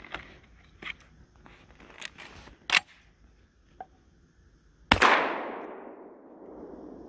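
A single shotgun shot about five seconds in, its report echoing and dying away over the next two seconds. A sharp click comes about two seconds before the shot, with a few faint knocks earlier.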